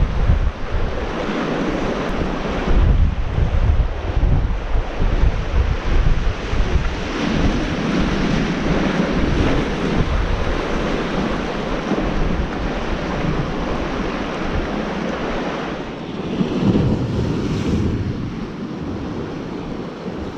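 Strong gusty wind buffeting the microphone over sea waves breaking and washing against shore rocks.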